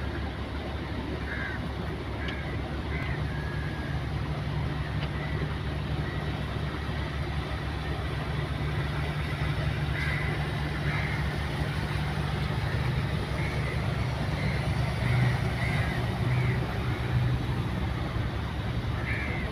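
A houseboat's inboard engine running with a steady low drone while the boat cruises, over a rushing wash of water and wind.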